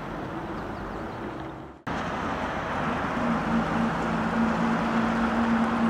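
Road traffic noise. After a brief break about two seconds in, a car engine's steady hum comes in and grows a little louder.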